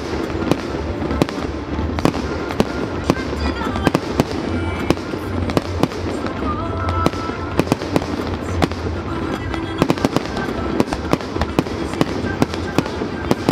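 Aerial fireworks display: shells bursting overhead with many sharp cracks and pops in quick, irregular succession over a steady low rumble.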